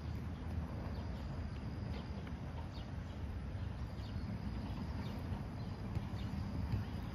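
Outdoor ambience: a low steady rumble with short, faint bird chirps now and then.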